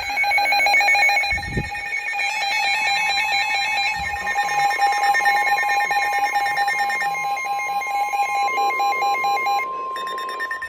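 Several NOAA weather radios going off at once for a flash flood warning, their electronic alert beeps pulsing and overlapping. From about three seconds in, the broadcast's steady single-pitched warning alarm tone sounds through them. A short low thump comes about one and a half seconds in.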